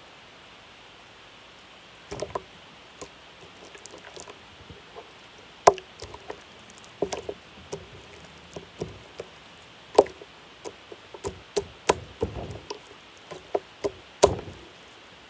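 Slime being squished and poked by hand, giving irregular sharp pops and clicks that start about two seconds in.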